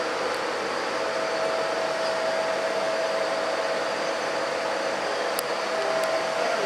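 Steady whirring noise of a running machine, like a blower or fan, with a held hum tone through it.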